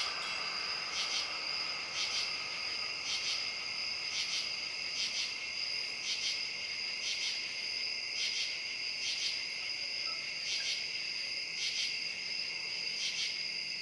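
Night insect chorus: crickets trilling in a steady shrill drone, with a pulsing call repeating about once or twice a second. The last noise of a passing train fades out in the first second.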